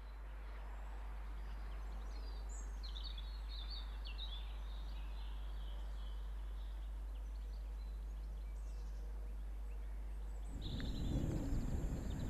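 Outdoor ambience: small birds chirping over a steady low hum and hiss. About ten seconds in, a louder, uneven rumble of wind on the microphone comes in.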